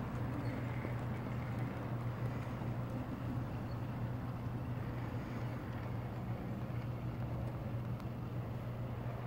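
Steady rolling rumble and low hum of a model railroad ore train running along the layout track, its string of ore cars passing at an even speed.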